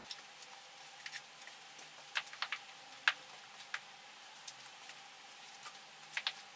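Faint steady room hiss with a few scattered light ticks and clicks, a small cluster of them about two to three seconds in and another near the end.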